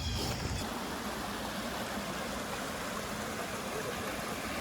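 Steady rushing of flowing creek water, an even hiss without distinct splashes.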